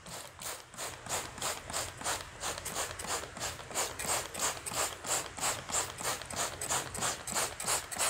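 Plastic trigger spray bottle squeezed over and over in quick even succession, about four sprays a second, each squeeze a short click and hiss of mist.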